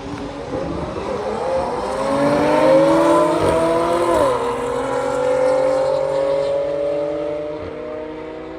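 Car engine accelerating hard through the gears: its pitch climbs, drops sharply at an upshift about four seconds in, then climbs again until another shift at the end.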